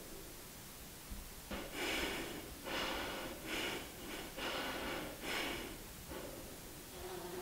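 A woman breathing heavily through her nose: about four loud breaths in a row, each roughly a second long, starting about a second and a half in.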